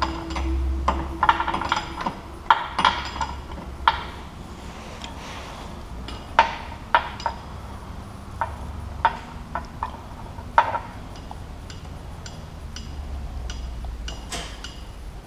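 Steel wrenches clinking and clicking against a hydraulic hose fitting as a 90-degree adapter is loosened. It is a run of sharp metallic clinks, thickest in the first few seconds and sparser after about ten seconds, over a low steady hum.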